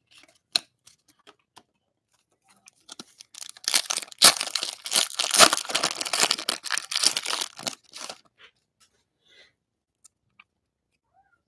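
A trading-card pack wrapper being torn open, a crinkly ripping from about three seconds in to about eight seconds, with a few light ticks before it.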